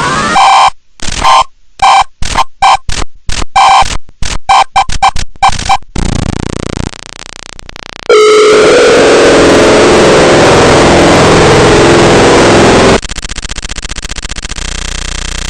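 Glitching Emergency Alert System audio. The alert tones are chopped into rapid stuttering bursts, then drop to a quieter stretch. About eight seconds in, a loud blast of distorted static with a steady low tone begins and turns into a harsher buzz near the end, the sound of a crashed, slowed-down broadcast.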